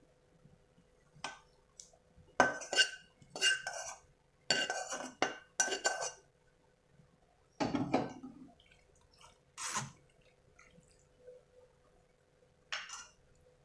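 Stainless steel cookware clanking while cooked macaroni is drained: a pot and a steel mesh strainer knocked and handled, about eight sharp metallic clanks with a ringing tone, the busiest between two and six seconds in, and a duller thud about eight seconds in.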